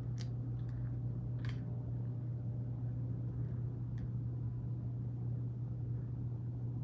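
Freight train passing outside, heard through a closed window as a steady low rumble, with a few faint clicks.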